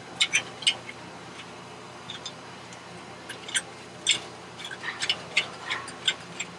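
Irregular light clicks and clinks as the sheet-metal heat shield on a Honda Odyssey's catalytic converter is handled and worked back into place.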